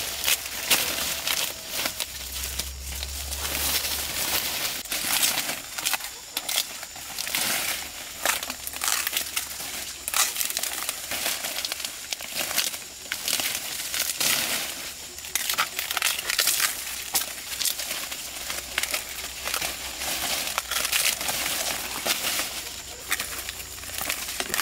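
Dry leaves and plant stalks rustling and crackling in quick, irregular strokes as vegetation is handled by hand.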